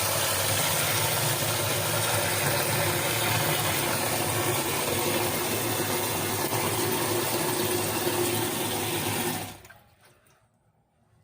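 Water running steadily from a tap, shut off abruptly about nine and a half seconds in.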